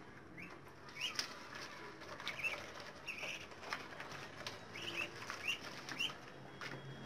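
Baladi ducklings about three weeks old peeping faintly, with short rising peeps scattered at irregular intervals.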